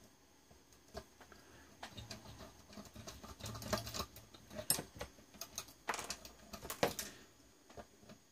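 Irregular clicks and taps of small metal hardware (screws, washers, front-panel parts) being handled and worked loose with hand tools, busiest in the middle with a few sharper knocks.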